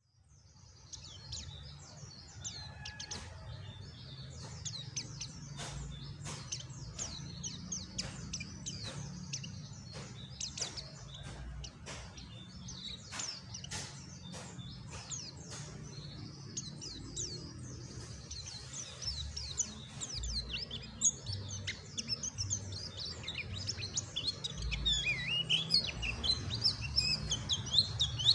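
A pleci (white-eye) twittering steadily in quick, high, soft chirps, the low chatter keepers call ngeriwik. It grows louder and busier in the last few seconds. Scattered sharp clicks sound throughout.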